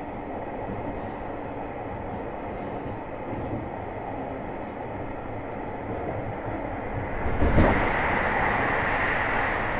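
Running sound inside a JR Hokkaido 733 series electric multiple unit motor car, a steady rumble with a faint constant whine. Most of the way through, a sudden loud bang comes, and the running noise then stays louder and brighter.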